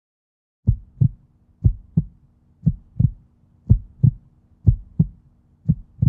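Heartbeat sound effect: low double thumps, lub-dub, repeating about once a second over a faint steady hum, starting suddenly out of silence.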